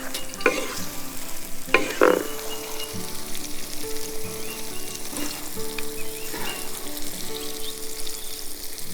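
Food frying and sizzling in a pan, with a few utensil scrapes and knocks about two seconds in.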